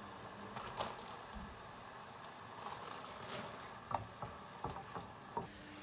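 Ground beef sizzling in a frying pan with a steady hiss, while spinach is stirred in with a wooden spatula that knocks against the pan several times.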